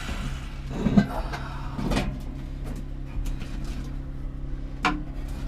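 A few scattered metal knocks and clinks, from tools and parts being handled on the loader's control column, over a steady low hum.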